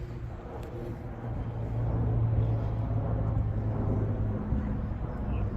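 A motor vehicle's engine running close by, a low steady hum that grows louder about a second and a half in and then holds.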